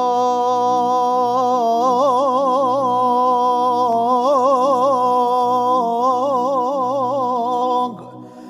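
A singer holds one long note with a wavering vibrato in an Islamic devotional song (nasheed) praising the Prophet, over a low hum. The note drops away near the end.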